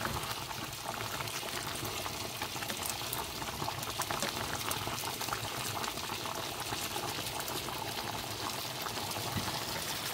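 Soaked corn kernels bubbling at a hard boil in an open stainless pot, a steady crackling hiss. The lid is off to boil away excess water and thicken the corn.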